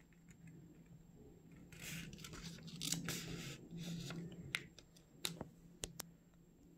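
Origami paper rustling and crinkling as it is folded and creased by hand, in a few short spells, with several light clicks toward the end.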